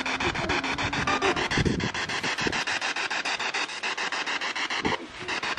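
Spirit box (P-SB7) sweeping through radio stations: hissing static chopped into rapid, even pulses, several a second, with brief snatches of radio sound.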